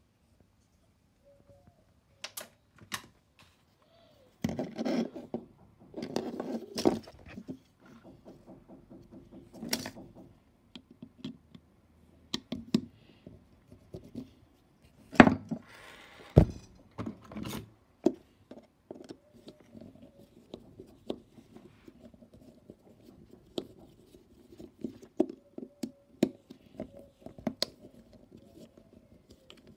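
A hand screwdriver turning screws in a speaker's black plastic panel: runs of fine ticks as the screws turn, broken by sharp clicks and knocks as the screwdriver and part are handled on a wooden desk, the loudest a few seconds in and around the middle.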